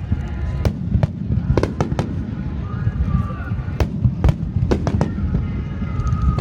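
Fireworks display: a continuous low rumble of shell bursts, with sharp cracks and bangs at irregular intervals, roughly every half second. Faint voices of spectators sound underneath.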